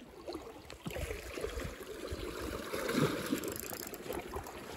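Seawater sloshing and trickling against shoreline rocks, with wind buffeting the microphone and clothing rustling against it.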